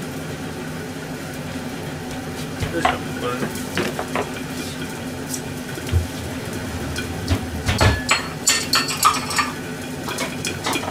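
Kitchen clatter: plastic food containers and yogurt tubs being set down and handled on a stainless-steel counter, a run of knocks and taps that gets busier in the second half, over a steady low hum.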